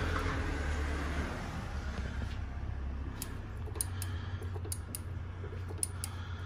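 Light, sharp clicks from hands working on a motorcycle's front hydraulic brake, a few a second and irregular, starting about halfway through, over a steady low hum.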